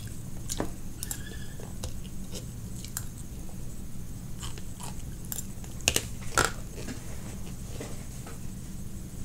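Close-up chewing of a mouthful of California roll sushi, with scattered small clicks. Two louder sharp clicks a little past halfway come from a metal fork set down in the plastic sushi tray.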